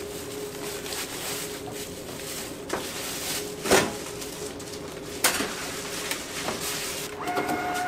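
Street-food kitchen clatter: a few sharp clinks and knocks of dishes and utensils over a steady hum and hiss, with the loudest knock about halfway through. Near the end a short electronic beep sounds.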